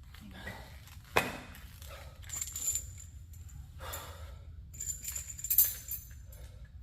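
Barbell and weight plates clinking and jangling with a high metallic ring, after a sharp knock about a second in; the loudest clank comes near the end.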